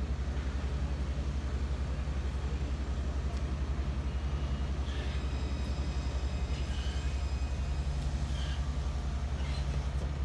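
Luas light-rail tram running into the platform and slowing to a stop, a steady low rumble throughout. From about halfway through come faint high-pitched squeals as it brakes.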